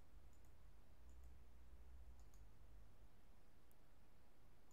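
Faint computer mouse clicks, several of them, some in quick pairs, over a low steady hum in near silence.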